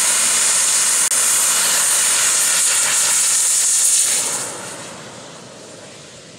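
Model jet's turbine engine running at high power with a loud, high hiss. About four seconds in the sound fades quickly as the jet rolls away down the runway on its takeoff run.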